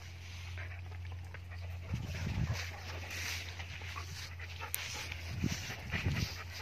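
Dogs play-fighting, panting and scuffling at close range, with two short low rumbles, one about two seconds in and one near the end.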